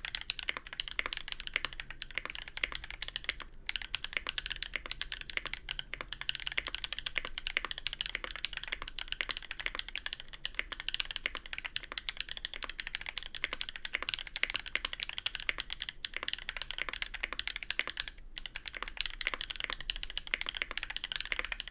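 Continuous fast typing on a 65% mechanical keyboard: an acrylic Tofu65 case with a brass plate, lubed Holy Panda tactile switches, GMK keycaps and no dampening foam. The keystrokes come as a dense, even run of sharp clacks, with two brief pauses, a few seconds in and about three-quarters of the way through.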